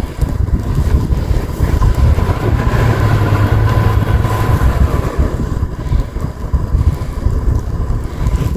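A motor vehicle's engine running in heavy wind, with wind buffeting the microphone as a loud low rumble. The engine swells about two seconds in and eases off again by around four and a half seconds.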